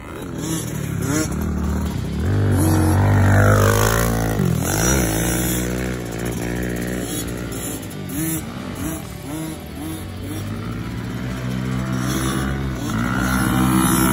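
Small kids' dirt bike engine running as it is ridden, its pitch rising and falling with the throttle. A long rev-up and drop comes about three seconds in, followed by a series of short rising blips.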